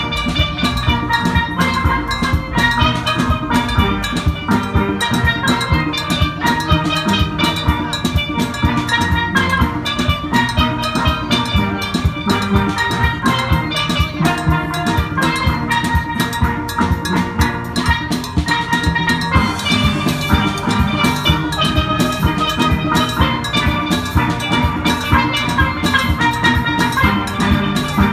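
Steel band playing: steel pans striking a melody in quick, even strokes, with drums keeping the beat underneath.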